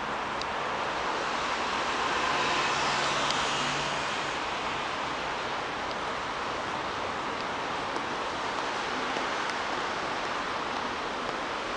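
Steady hiss of city road traffic, swelling a little about two to four seconds in.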